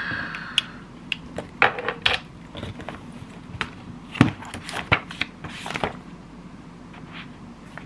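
Things being picked up and put down on a desk: scattered clicks and light knocks of glasses, a clear plastic sheet and a notebook against the tabletop, with short bursts of rustling from the plastic and paper.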